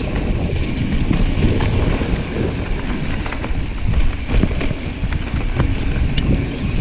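Mountain bike being ridden along a dirt trail: wind buffeting the microphone over the rumble of the tyres, with scattered clicks and rattles from the bike.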